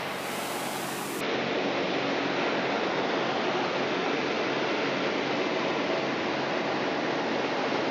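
Steady cockpit drone of a light aircraft in flight: the six-cylinder Jabiru 3300 engine and propeller under a heavy, even rush of airflow. About a second in it turns a little louder and duller.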